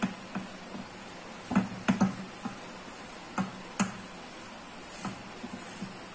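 Wooden rolling pin rolling out dough on a metal plate, giving irregular light knocks and taps, a few in quick succession, as the pin and hands bump the plate.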